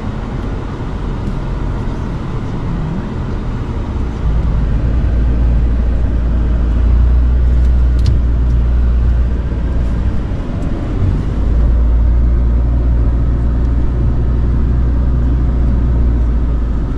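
Car cabin noise while driving over a sandy track: a steady low rumble of engine and tyres that gets louder about four seconds in, with a single sharp click about eight seconds in.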